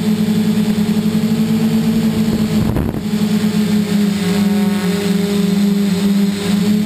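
Scorpion Y6 multicopter's motors and propellers humming steadily as it hovers, heard from the GoPro mounted on the craft. A short rush of noise comes about three seconds in.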